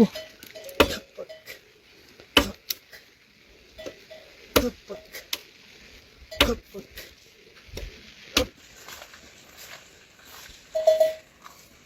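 A series of sharp chopping or knocking strikes, irregularly spaced one to two seconds apart, with a few short, faint calls in between.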